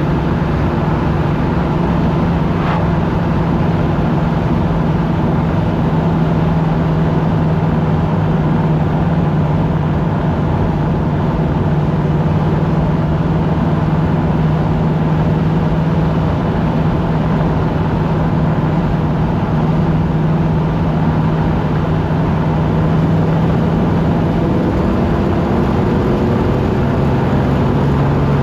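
1976 Chevrolet Nova cruising at steady speed, heard from inside the cabin: a constant engine drone over tyre and wind noise. Near the end the engine note dips slightly in pitch.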